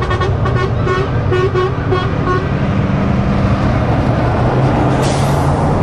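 Truck air horn sounding in a string of short toots over the first two seconds or so. Then a Scania R450 lorry's six-cylinder diesel runs as it passes close by, with a brief hiss about five seconds in.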